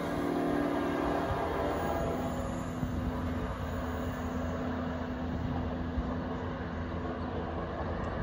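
A Metro-North F40PH-3C diesel locomotive and its Comet coaches pulling away. The engine drone and the rail rumble are strongest for the first couple of seconds, then settle into a steadier, slightly quieter hum as the train recedes.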